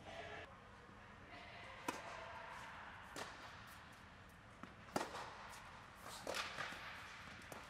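Tennis rally: sharp pops of a tennis ball struck by rackets and bouncing on the hard court, about every one to one and a half seconds, each echoing under the fabric dome. The loudest hit comes about five seconds in.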